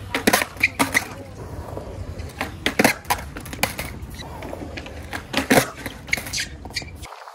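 Skateboard on concrete: the wheels rolling with a low steady rumble, broken by a series of sharp clacks as the board is popped and slaps down on the ground. The rumble cuts off suddenly near the end.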